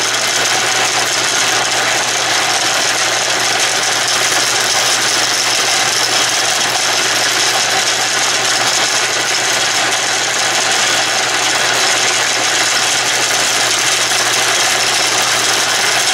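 Atlas/Craftsman 12-inch lathe running steadily under power feed, with a steady low hum. Its motor, belt drive and change-gear train are turning the lead screw, which drives the carriage.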